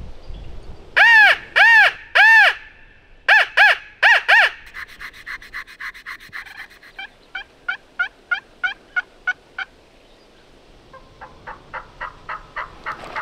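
Turkey yelping: two loud groups of three yelps, the first about a second in and the second about three seconds in. These are followed by a faster, quieter run of notes and then a steady series of about three yelps a second. A fainter series of yelps comes near the end.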